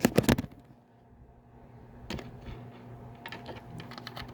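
A quick cluster of sharp clicks and knocks, then scattered faint taps over a low steady hum: hard plastic equipment being handled and moved about.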